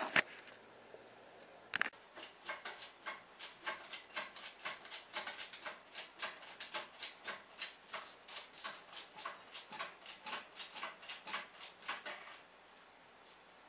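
A ratchet clicking in a quick, even run of about four clicks a second for some ten seconds, then stopping, as a bolt is worked on an engine hanging from an engine hoist. A single sharp knock comes just before the clicking starts.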